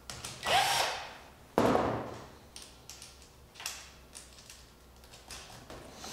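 Handling of a pond aerator's intake screen sections and their stainless steel bolts and nuts: two loud knocking, scraping clatters about half a second and a second and a half in, then lighter clicks and knocks.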